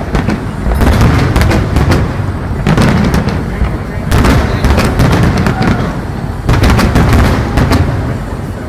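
Fireworks display going off: many sharp bangs in quick succession with crackling, coming in several loud waves.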